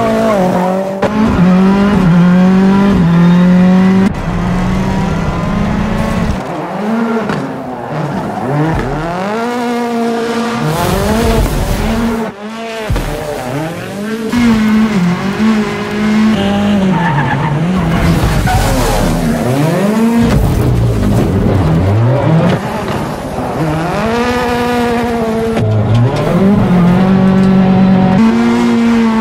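Ford Fiesta rally car's turbocharged EcoBoost engine revving hard, its pitch climbing and dropping back again and again as it is driven flat out and slid, with tyres skidding. The sound briefly dips about twelve seconds in.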